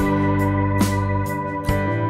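Background music: sustained chords punctuated by sharp percussion hits.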